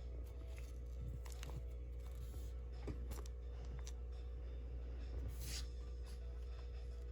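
Packaging being handled: scattered small clicks and brief rustles, over a steady low electrical hum.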